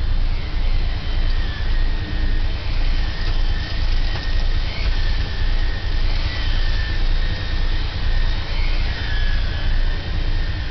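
Corded vacuum cleaner with a brush roll running steadily, its high motor whine wavering slightly as it is pushed back and forth over the floor, the loudness rising and falling about one and a half times a second.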